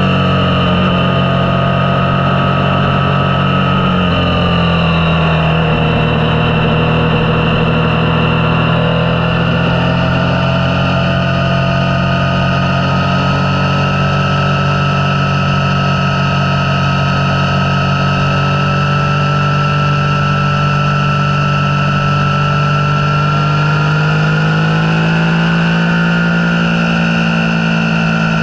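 Motorcycle engine running at road speed, its pitch dipping a few seconds in, holding steady, then rising again near the end as the bike speeds up, with a steady rush of wind noise underneath.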